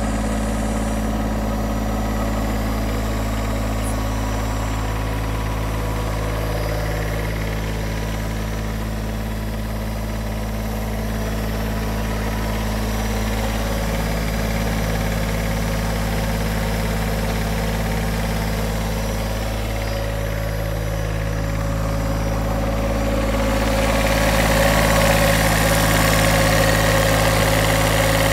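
Bobcat S70 skid-steer loader's Kubota three-cylinder diesel engine idling steadily, getting louder near the end.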